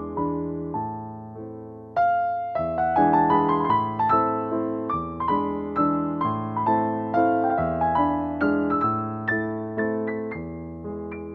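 Background piano music: a gentle melody of struck notes over chords, each note fading after it is played, growing fuller about two seconds in.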